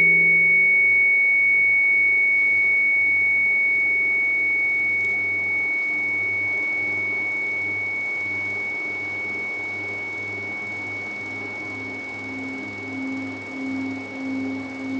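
A single high, pure ringing tone from a struck instrument, slowly fading. About twelve seconds in, a Tibetan singing bowl begins to sing as a wooden mallet is rubbed around its rim, a lower hum that swells and fades in a steady wobble.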